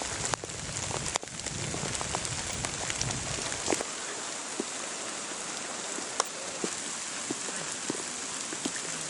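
Steady rain falling, with scattered sharp drop ticks over the hiss. A low rumble underlies the first few seconds.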